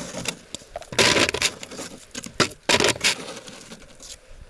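Footsteps crunching in frozen snow: a few irregular crunches, the loudest about a second in and a cluster a little past two seconds.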